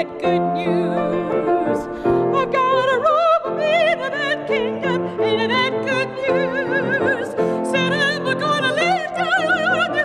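A woman singing operatically, in classical style, with a wide vibrato on long held notes, accompanied by piano.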